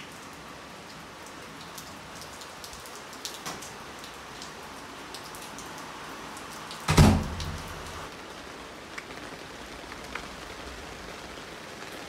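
Steady heavy rain falling, with scattered light taps and a single loud thump about seven seconds in.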